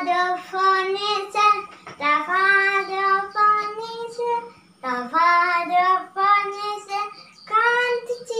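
A young girl singing solo in long held notes with pitch slides, in several phrases broken by short breaths.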